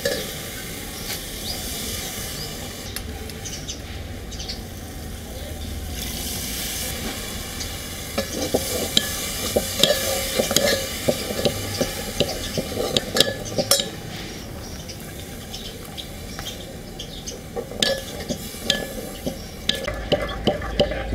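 A steel spoon stirring and scraping in a metal pot of kadhi as soaked gram-flour batter is mixed into a fried spice paste, with a steady sizzling hiss from the pot. The spoon clicks and clinks against the pot repeatedly, busiest through the middle of the stretch and again near the end.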